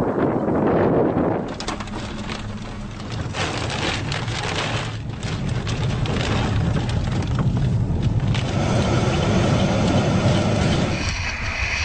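Tornado-force wind roaring over the microphone, with debris knocking and splintering through it. Near the end a few steady high tones ride over the roar for a couple of seconds before the noise drops off sharply.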